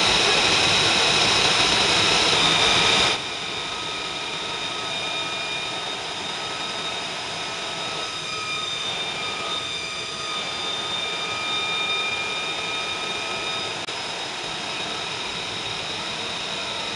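F-35 fighter's turbine running on the ground: a steady jet whine with several high tones over a rushing noise. It drops suddenly in level about three seconds in, then holds steady with a slight swell near the end.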